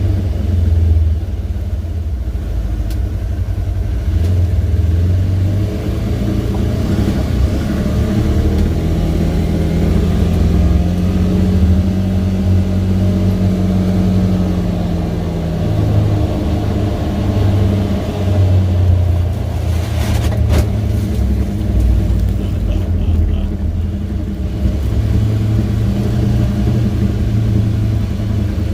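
A 2018 Polaris Ranger 900 XP side-by-side is driving, with the engine and drivetrain running steadily, heard from inside its enclosed cab, which has no sound deadening. Around the middle, the engine pitch rises and then falls back. A few knocks come about two-thirds of the way through.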